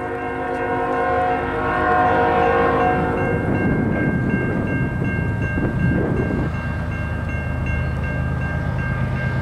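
Diesel freight locomotive's multi-note air horn sounding a long blast that stops about three and a half seconds in, with the rumble of the approaching train continuing underneath.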